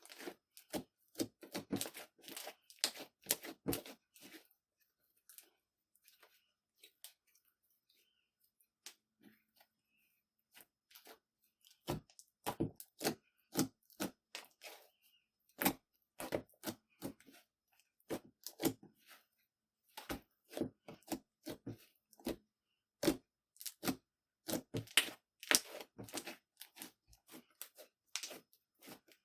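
Slime being squeezed and stretched by hand, giving irregular sticky crackles and pops in clusters, with a sparser, quieter stretch partway through.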